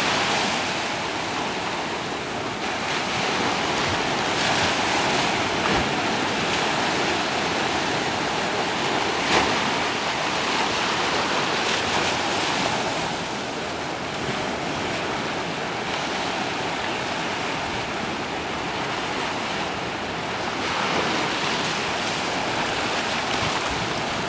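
Ocean surf breaking over a rocky shore and washing through the shallows: a steady rushing that swells and eases every few seconds.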